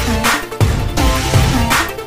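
Electronic intro music with a heavy bass beat and a bright noisy hit near the end.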